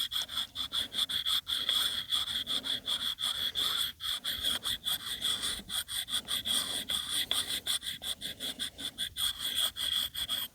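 A Lansky-style sharpening puck, wetted with water, scraping back and forth along the carbon-steel edge of a Fiskars X11 hatchet in quick, even strokes, several a second, with a steady hiss.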